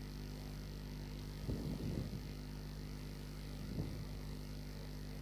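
Steady low electrical mains hum from the recording setup, with two faint brief low sounds about a second and a half in and again near four seconds.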